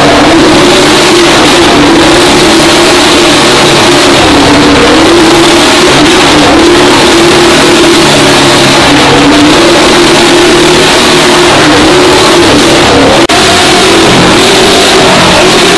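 Motorcycle engines running hard on a wall-of-death drum, the pitch rising and falling over and over as the bikes circle the wall. Very loud throughout, with a brief cut in the sound near the end.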